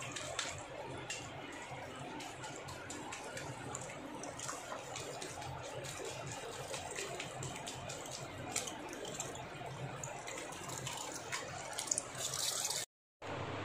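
Water from a handheld shower sprayer running steadily onto hair and into a salon wash basin, a hissing splash. It cuts out for a moment near the end.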